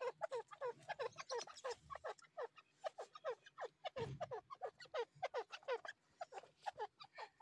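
Grey francolin giving a rapid run of short, soft clucking notes, each falling in pitch, about four or five a second. There is a low thump about four seconds in as the bird works in the dust.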